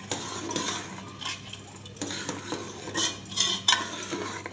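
Steel ladle stirring thick, freshly pressure-cooked dal in an aluminium pressure cooker, scraping and clinking irregularly against the pot's sides and bottom, with a few louder clanks a little past the middle.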